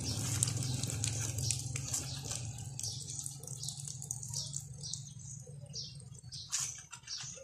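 Wet laundry being squeezed and wrung out by hand, with water splashing and dripping into a basin, over a low steady hum that weakens after about three seconds.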